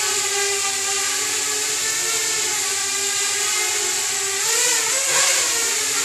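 Parrot Bebop quadcopter drone hovering, its four propellers whirring with a steady whine over a hiss. The pitch wavers and the sound swells briefly about four and a half seconds in.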